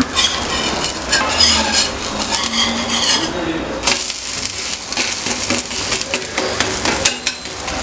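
Spatula scraping and tapping on a hot cast-iron dosa tawa as a moong dal dosa is loosened, flipped and pressed down, with the dosa sizzling in ghee underneath. A sharper clatter comes about four seconds in.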